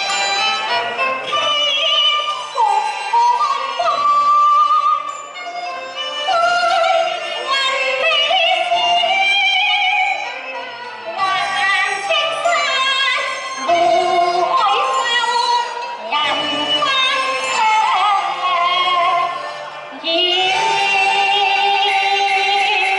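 Cantonese opera: a wavering, ornamented singing line over traditional instrumental accompaniment.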